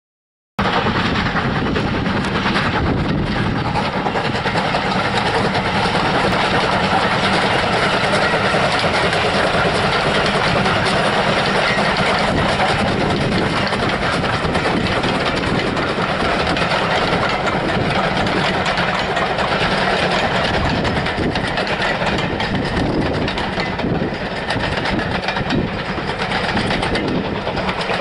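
BR Ivatt Class 4MT 2-6-0 two-cylinder steam locomotive working hard up a gradient with a passenger train, then its coaches rolling past over the rails. The sound cuts in about half a second in and runs loud and steady, easing slightly near the end.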